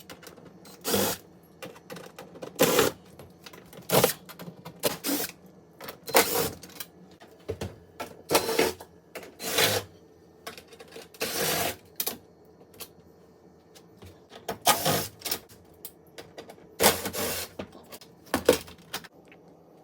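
T20 Torx driver taking screws out of a dishwasher door panel: about a dozen short, irregular metal clicks and rattles, spaced a second or two apart.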